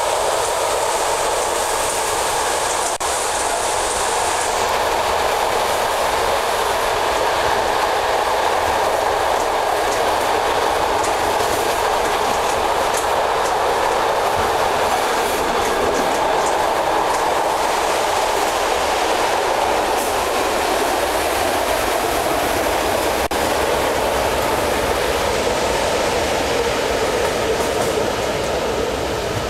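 Regional passenger train running along the line, heard from inside the carriage: a steady running noise of wheels on rails, with a few faint clicks. A high hiss stops about four seconds in.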